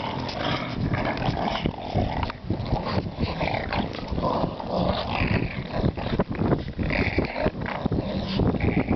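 English bulldogs growling as they play-fight and tug a stick between their mouths. The growls are rough and irregular and keep up throughout.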